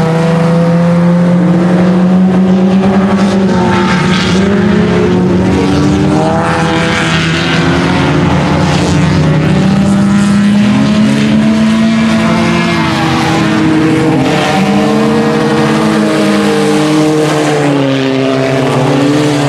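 IMCA Sport Compact race car's four-cylinder engine heard from on board, running hard. Its pitch rises and falls repeatedly as the driver lifts and gets back on the throttle around the track.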